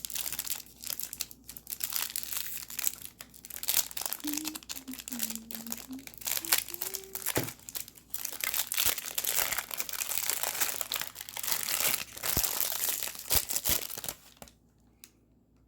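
Packaging crinkling, rustling and tearing as a small item is unwrapped by hand, with many small crackles; it stops about a second before the end.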